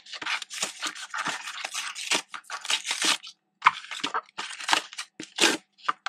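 Cardboard box being torn and pulled open by hand: a quick, irregular run of tearing and rustling scrapes as the flaps rip and crinkle.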